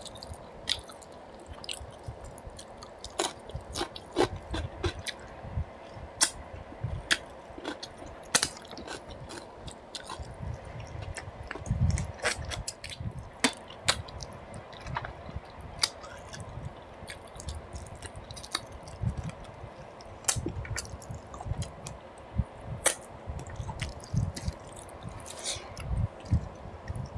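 Close-miked eating of rice with mutton paya (goat trotter) curry by hand: wet chewing and lip-smacking with many short sharp clicks, and squelching as the fingers work the rice into the gravy.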